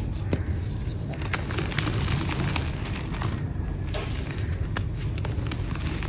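Dry yellow mud dirt crumbling: a continuous run of small crackles and sharp snaps over a steady low rumble.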